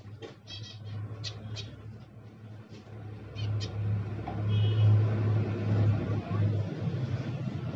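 Small caged finches giving short, high chirps, several in quick succession at first and a few more later, over a low hum that swells from about halfway through and becomes the loudest sound.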